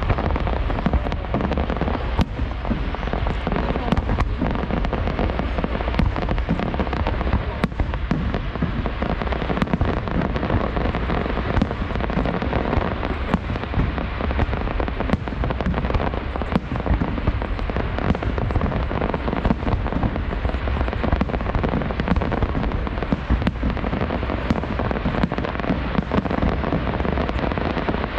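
Aerial fireworks display: gold crackling shells bursting overhead, making a dense, steady crackle with many sharp pops.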